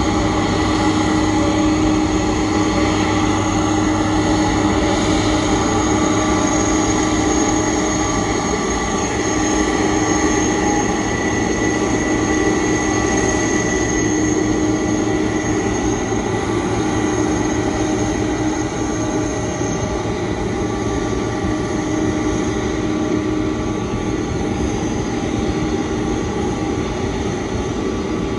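Boeing 747-400 LCF Dreamlifter's turbofan engines running at idle during pushback by a tug, a steady whine of several held tones over a constant rushing noise.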